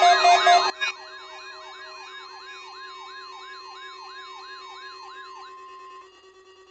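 Electronic siren yelping, a quick rise and fall repeating about three times a second over steady electronic tones. It is loud at first, drops sharply to a much lower level less than a second in, and the yelping stops about five and a half seconds in.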